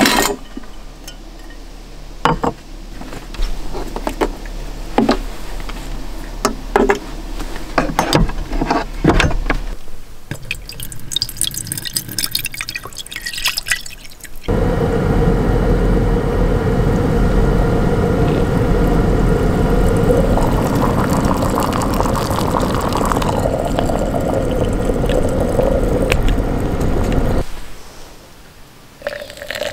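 Scattered knocks and clatters of things being moved about while searching an under-counter storage drawer. From about halfway, water is poured steadily into a collapsible silicone electric kettle for some thirteen seconds, then stops shortly before the end.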